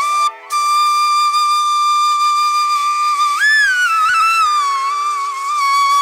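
Background music: a solo flute playing a slow melody of long held notes, with a short break about half a second in and a few bends in pitch past the middle, over a soft steady drone.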